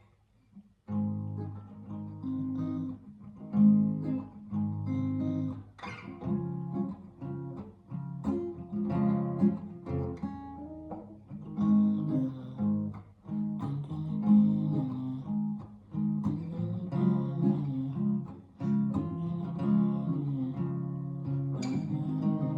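Acoustic guitar played slowly, going back and forth between two chords, G-sharp major and C-sharp major, each chord struck repeatedly in a steady rhythm. It starts about a second in.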